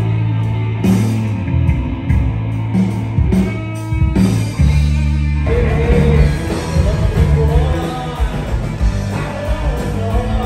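Live rock band playing, with electric guitar and a singing voice. The music changes about four seconds in.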